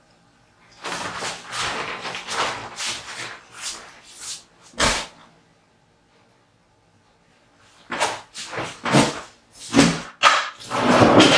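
A run of brisk scrubbing strokes of a paintbrush on canvas, then a sharp knock about five seconds in. After a short quiet spell come more scraping and knocking, from paint containers being handled.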